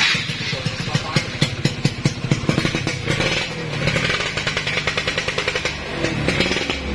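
Yamaha F1ZR's two-stroke single-cylinder engine, bored to 116 cc, running and being revved, its exhaust pulses rising and falling unevenly with the throttle.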